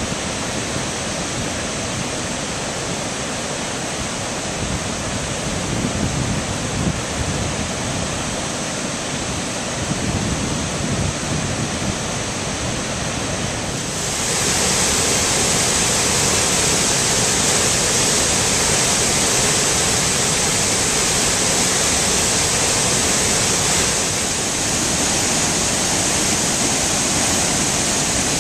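Steady rushing of the Great Falls of the Passaic River, a large river waterfall, with gusty low wind rumble on the microphone in the first half. About halfway through the rushing turns suddenly louder and hissier, then eases slightly near the end.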